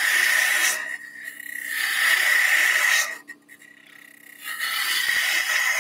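A turning tool cutting the spinning wooden workpiece on a wood lathe: three hissing, scraping cuts of a second or more each, with short pauses between, over the lathe's steady low hum.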